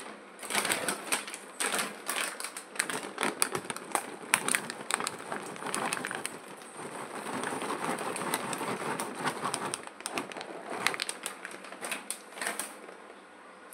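Dry makhana (fox nuts) poured from a plastic packet into a metal kadai of raw oats, a rapid scatter of light ticks and clatters against the pan, with the packet crinkling.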